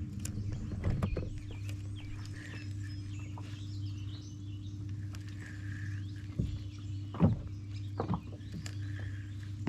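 A steady low hum, with faint bird-like chirps above it and a few sharp knocks about six to eight seconds in.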